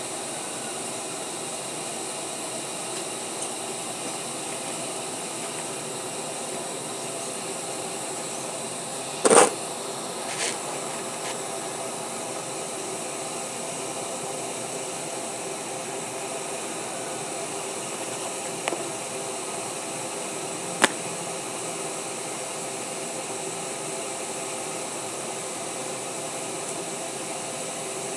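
Workshop machinery running with a steady hum and hiss. A few short isolated knocks come through: a sharp one about nine seconds in, the loudest sound here, and smaller clicks at about ten and a half, eighteen and a half and twenty-one seconds.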